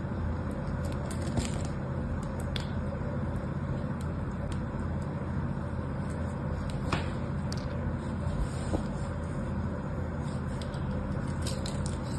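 A small knife blade cutting and scraping into a bar of soap: scattered crisp scrapes and cracks, a cluster of them near the end, over a steady low rumble.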